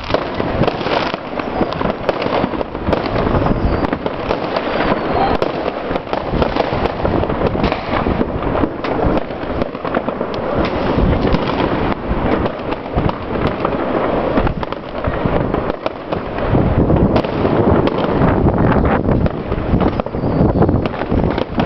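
Many fireworks and firecrackers going off at once: a dense, unbroken crackle of overlapping bangs. Deeper booms grow heavier from about sixteen seconds in.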